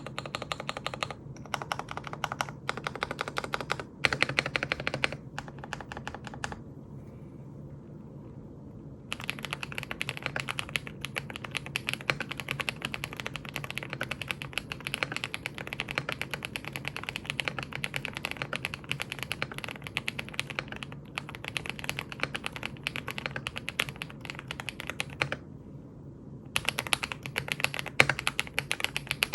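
KBDfans Tiger80 Lite plastic mechanical keyboard, fully foamed, with factory-lubed Black Cherry Pie linear switches (nylon housings, POM stems), being typed on fast. Short bursts of keystrokes come first, then a pause of about two seconds, then a long stretch of continuous rapid typing, a brief pause near the end, and typing again.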